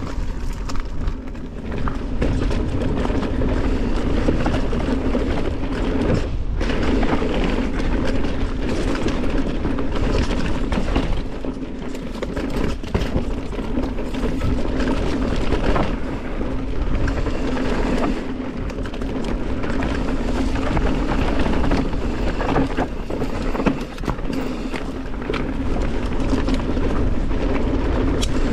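Mountain bike rolling fast down a dirt trail: a steady rush of tyres and wind on the mic, broken by frequent knocks and rattles as the bike goes over bumps.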